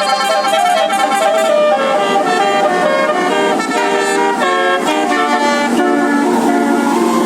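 Bus basuri telolet musical horns playing a quick tune, one short horn note after another, ending on a long held note near the end.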